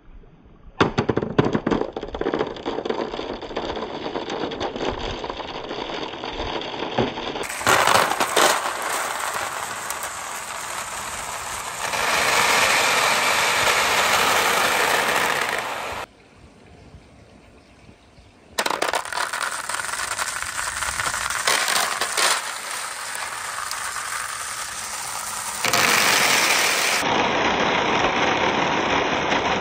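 Hundreds of glass marbles rolling and clattering down a perforated board slope between wooden rails, clinking against one another and the board in a continuous rattle. It drops away for a couple of seconds a little past the middle, then resumes.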